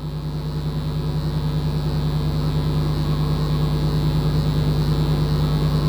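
Steady electrical hum with a slight regular pulsing, swelling a little over the first two seconds and then holding level.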